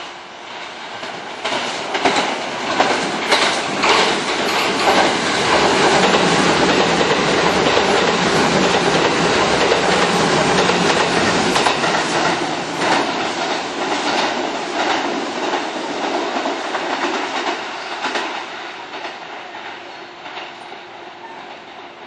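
Kintetsu commuter electric train running through the station at speed, its wheels clattering over the rail joints. The sound builds from about two seconds in, is loudest in the middle and fades away near the end.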